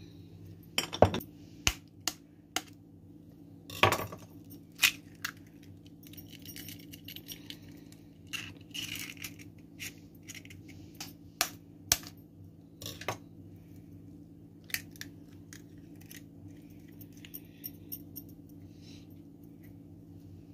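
Eggs being tapped and cracked against the rim of a mixing bowl and their shells pulled apart: a scattered series of sharp clicks and clinks, the loudest about one and four seconds in, over a low steady hum.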